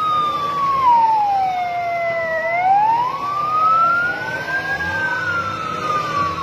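Emergency vehicle sirens responding to a fire: one loud siren in slow wail mode glides down, rises about halfway through, then falls again. A second, fainter siren wails out of step with it.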